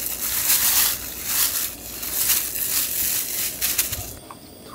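Food sizzling and crackling in a hot pan, cutting off about four seconds in.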